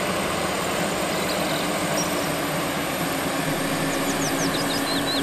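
JCB Fastrac tractor's engine running steadily while the tractor pulls a plough through the field, a continuous even drone with a low hum.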